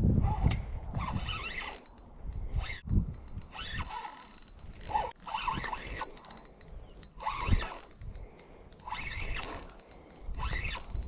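Fishing reel cranked in spurts against a snagged line, its gears and clicking mechanism rasping, with a low rumble near the start.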